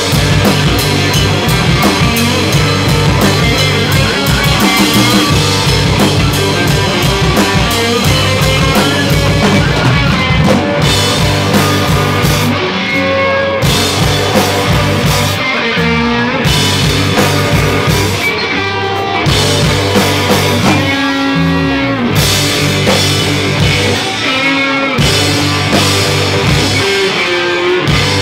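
Live rock band playing loud: electric guitar over a drum kit, with cymbals crashing steadily through the first ten seconds or so, then breaking off in short gaps where sliding guitar notes stand out.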